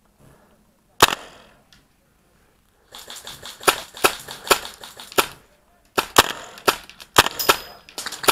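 Airsoft rifles firing single shots: one sharp crack about a second in, then from about three seconds on an irregular run of about ten more.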